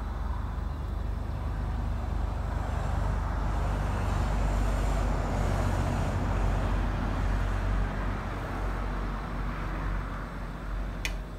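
Portable gas stove's burner running under a pot of tom yum broth, a steady low rumbling noise, with one sharp click near the end.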